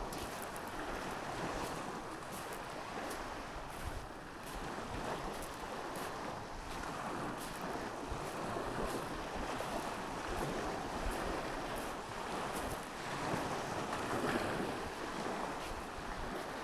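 Small waves washing onto a sandy shore in a steady surf, swelling gently every few seconds, with wind buffeting the microphone.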